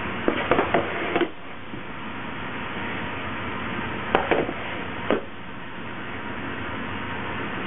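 Perforated metal baguette trays knocking and rattling as they are set down and slid on a wooden bench: a cluster of clatters in the first second or so, and another about four to five seconds in. A steady background noise runs underneath.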